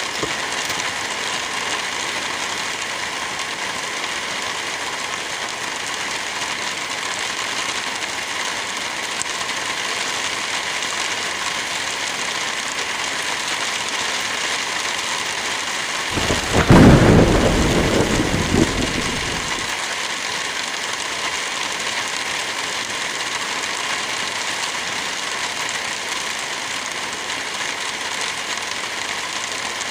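Steady rain falling, with a thunderclap a little past halfway that cracks loudly and rolls off over about three seconds.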